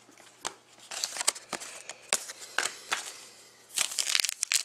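Trading cards being handled and set down, with scattered clicks and rustles, then a foil card pack being torn open: dense crinkling of the foil wrapper from a little under four seconds in.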